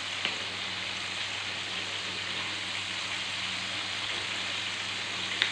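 Chicken frying in oil in a pan, a steady sizzle, over a steady low hum, with a light tap just after the start and another near the end.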